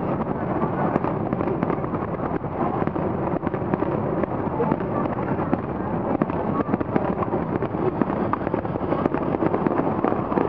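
A dense barrage of aerial firework shells bursting, their bangs and crackle overlapping with no pause between them.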